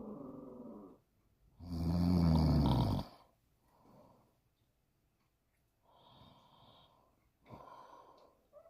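A grandmother snoring in her sleep: one loud, long snore with a low buzzing tone about two seconds in, between fainter snoring breaths that come every couple of seconds.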